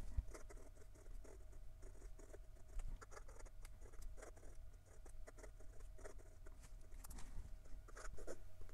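Sailor 1911 Large fountain pen's 21-karat gold nib writing on paper: a run of light, irregular scratches and ticks as the letters are formed.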